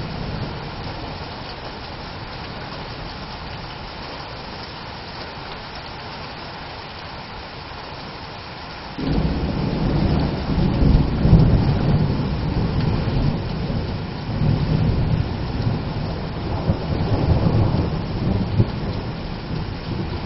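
Heavy rain falling steadily in a thunderstorm. About nine seconds in, a loud thunder rumble breaks in suddenly and rolls on in surges to the end.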